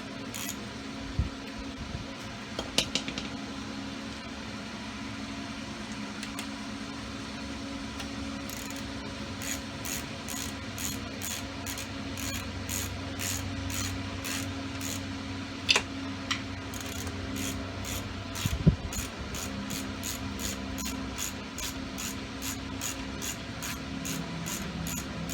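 Hand ratchet clicking steadily, about three clicks a second, as bolts are run down during a dirt-bike top-end reassembly. It comes with a few clanks of metal tools and a steady low hum.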